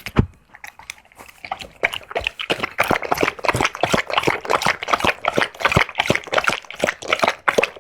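Black Labrador chewing on a bone: rapid wet mouth sounds and clicks of teeth, a few scattered at first, then running thick and fast from about a second and a half in.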